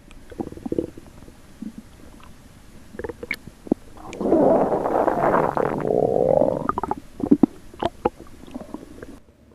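Hungry stomach growling and gurgling: short scattered gurgles, then a longer, louder rumbling gurgle about four seconds in that lasts a couple of seconds, followed by a few more short gurgles.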